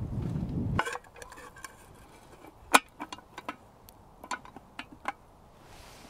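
Wood campfire crackling: a scatter of sharp, separate pops and snaps, the loudest a little before the middle. It follows about a second of low noise that cuts off abruptly.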